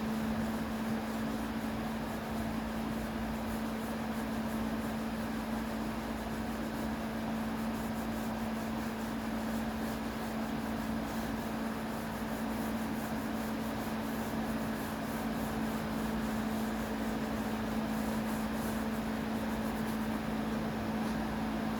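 Steady machine hum: one low, even tone with a hiss over it, unchanging throughout.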